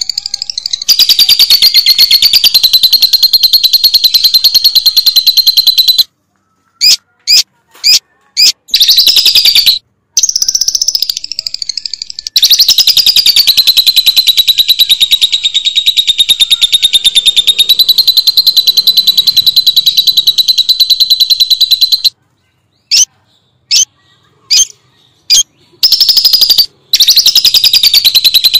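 Lovebird ngekek: a long, very rapid chattering trill at a high pitch, held for several seconds at a time, broken by short chirps and sudden silences.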